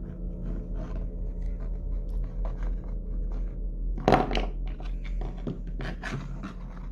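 Hard plastic toy figures tapped and scraped along a painted wooden play board as a hand walks them across it: a string of light clicks and knocks with a louder clatter about four seconds in, over a steady low hum.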